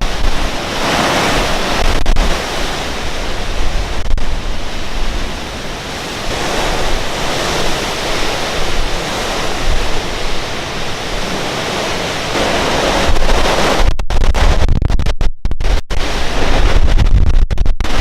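Hurricane wind blasting across the microphone: a loud, continuous rushing with heavy low rumbling buffets. The sound drops out for an instant several times about fourteen to sixteen seconds in.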